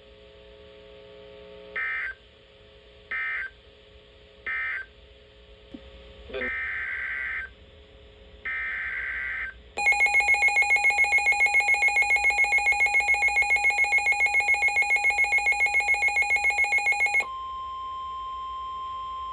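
NOAA Weather Radio Emergency Alert System sequence. It opens with three short screeching digital data bursts that end the previous warning, then two longer screeching header bursts for the next warning. A loud, rapidly pulsing electronic alarm follows for about seven seconds, and then a steady, single-pitched warning alarm tone.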